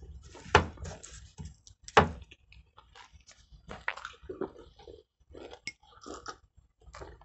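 People chewing and biting into Danish pastries during a fast eating contest: irregular mouth noises and small smacks, the two loudest about half a second and two seconds in.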